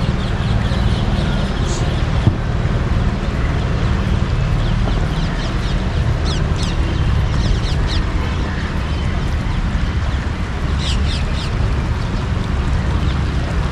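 Steady low rumble of wind buffeting the microphone over the rush of a river swollen after rain, with small birds chirping in quick bursts about six seconds in and again near the end.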